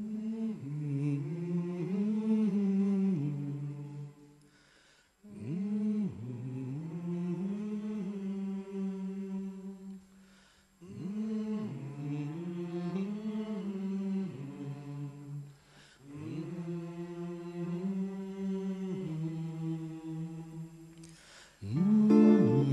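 A male voice singing unaccompanied: four long phrases that rise and fall in pitch, each followed by a short pause. Near the end the band comes in at a louder level with strummed acoustic guitar.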